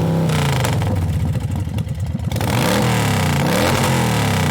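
A motor vehicle engine revving. Its pitch drops early on, then rises and falls over and over in quick revs, about one every two-thirds of a second, in the second half.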